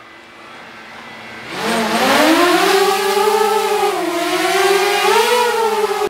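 DJI Mavic Air quadcopter on its stock propellers: the motors whir faintly at idle, then about a second and a half in spin up into a rising whine as it lifts off, holding a steady whine with slight wavering in pitch while it climbs and hovers. The sound cuts off abruptly at the end.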